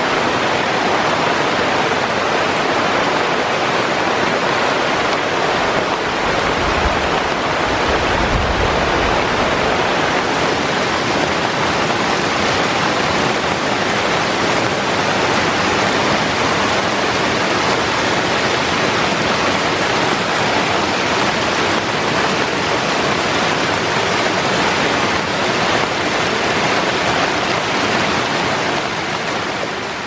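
Heavy rain pouring onto dense rainforest foliage of bamboo and banana leaves, a steady, dense hiss.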